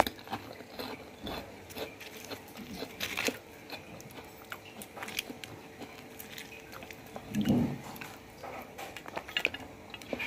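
A person eating by hand from a plate: scattered light clicks and crunches of food being picked up and chewed. There is a short murmur about seven seconds in.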